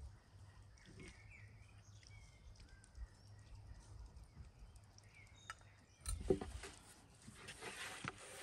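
Faint bird chirps over quiet rural ambience. About six seconds in, a long thin wooden rolling pin knocks down onto a round wooden board and starts rubbing and rolling over lavash dough.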